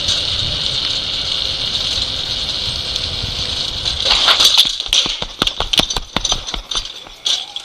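Trike rolling fast down a paved path: a steady hiss of tyres on asphalt and wind on the rider's camera. About four seconds in, the hiss falls away and a run of irregular clicks and rattles follows as it slows.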